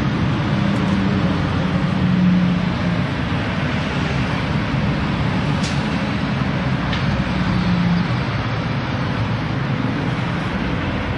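Steady rumble of running vehicle engines and traffic noise, with a low hum that swells and fades and a few faint clicks.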